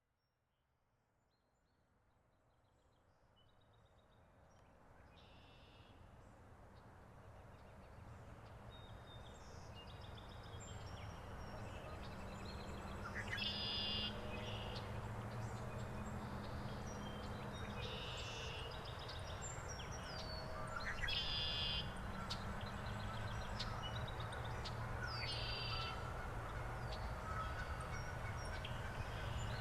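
Songbirds chirping and trilling in short repeated phrases over a steady low rumble, fading in from silence over the first ten seconds or so.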